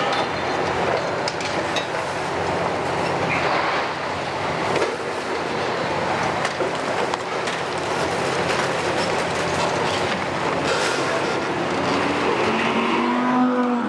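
Kiesel KMC 600 long-reach demolition excavator on a Hitachi 470 base working under load, its six-cylinder diesel running steadily while its demolition tool breaks into a brick building's upper floors. Rubble clatters and rattles as it falls. A squealing tone rises near the end.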